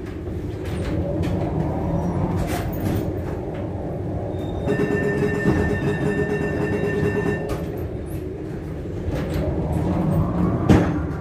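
Nostalgic street tram running slowly, a steady rumble and rattle heard from inside the car. A steady whine rises over it for about three seconds in the middle, and a single sharp knock comes near the end.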